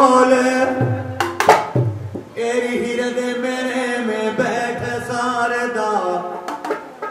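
Devotional folk music: a man's voice singing over a bowed folk fiddle's steady drone, with a few sharp strokes on a small hourglass hand drum, twice about a second and a half in and again near the end.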